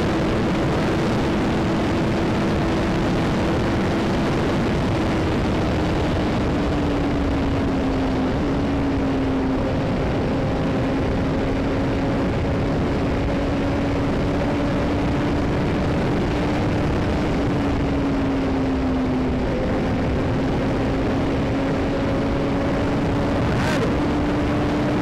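Yamaha XJ6 motorcycle engine running at a steady road cruise, its note sinking slightly about a third of the way in and then holding, under heavy wind rush on the helmet-mounted microphone.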